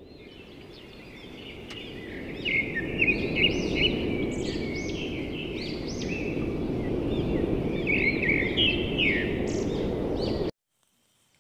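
Small birds chirping in many short, gliding calls over a steady rushing background noise. The noise fades in over the first couple of seconds, the chirps join about two seconds in, and everything cuts off abruptly about a second before the end.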